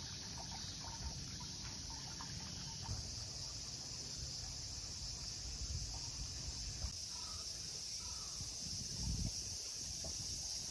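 Outdoor garden ambience: a steady, high-pitched drone of insects, with a low rumble underneath and a few faint short chirps.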